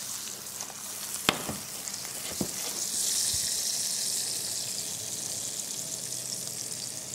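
Thin strips of Leberkäse sizzling on high heat in a nonstick frying pan. Two light knocks come in the first few seconds as the pan is tossed. The sizzle grows louder about three seconds in.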